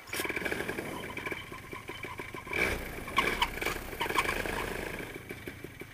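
Paramotor engine running unevenly, with irregular firing and a thin whine, then dying away near the end. It is an unhappy motor with a worn-out clutch.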